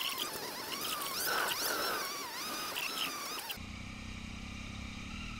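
High, warbling tones that wander up and down in pitch, cutting off abruptly about three and a half seconds in. After the cut, an adventure motorcycle's engine runs steadily as a low, even drone.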